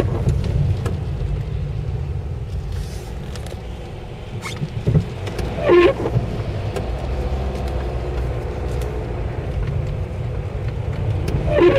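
Inside a car on a wet road: a steady low rumble of engine and tyres, with the windscreen wipers on intermittent making a brief squeaky sweep three times, about six seconds apart.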